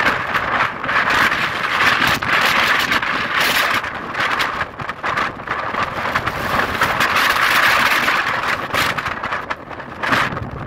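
Strong wind gusting hard over the microphone, a loud rushing noise that swells and eases, with short lulls about four seconds in and near the end.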